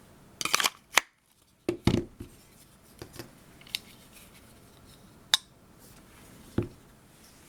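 Handling of a large folding knife: scattered sharp metallic clicks and taps with a couple of short rattling bursts, one about half a second in and another near two seconds. A brief dead silence follows the click at one second.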